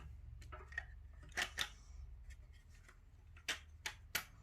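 Handling clicks and taps from PS5 controller plastic parts being fitted back together, a few scattered sharp clicks, with a low steady hum underneath.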